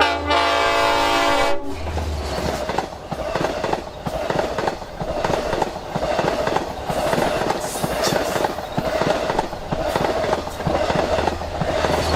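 A Long Island Rail Road DE/DM30AC diesel locomotive's air horn sounds one short chord blast of about a second and a half that cuts off abruptly. The train then runs by with a steady rhythmic clatter of wheels over the rail joints.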